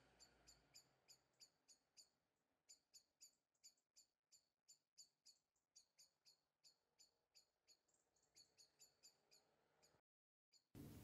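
Near silence, with faint short high-pitched chirps repeating about three times a second, stopping shortly before the end.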